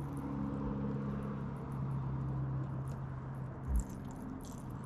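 A boat motor running steadily: a low hum made of a few held tones that shift slightly partway through. A single low thump near the end.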